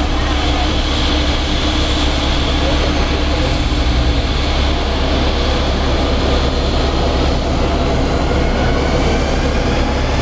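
Embraer 190 airliner's two General Electric CF34-10E turbofans running steadily at taxi power as the jet rolls past, a constant jet noise with a high whine and a deep rumble underneath.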